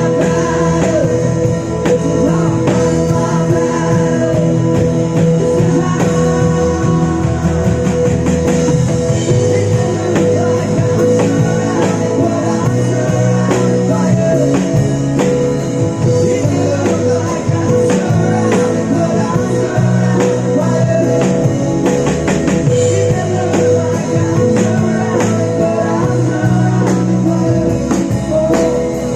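Live rock band playing an instrumental passage of a worship song: guitar over bass with a steady drum beat.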